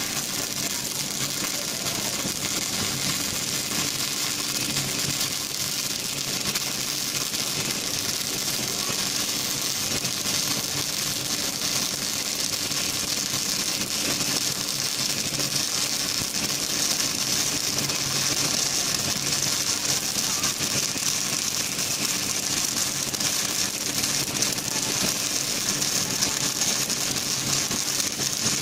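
Continuous crackling hiss of a six-axis welding robot's MIG arc laying a weld, steady throughout, over a faint steady hum.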